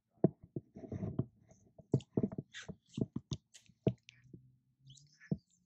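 Irregular clicks, taps and rustles of a baitcasting rod and reel being handled close to the microphone, over a faint steady low hum.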